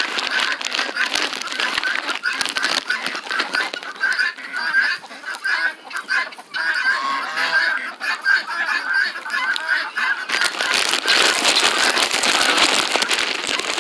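Domestic geese honking, a fast run of short repeated calls, with a louder rushing noise coming in near the end.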